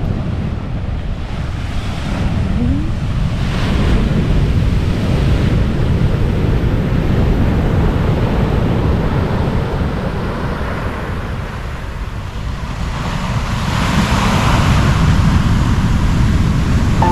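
Heavy surf on a beach during a rough-sea spell: waves breaking and washing in, swelling louder about three seconds in and again near the end, with wind rumbling on the microphone.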